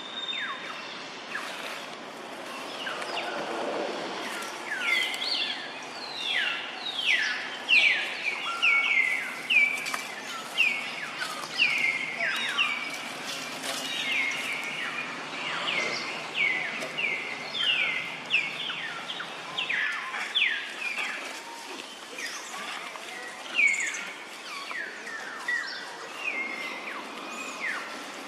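Baby macaque calling noisily: a long run of short, high-pitched squeaks, each falling in pitch, repeated about one to two a second.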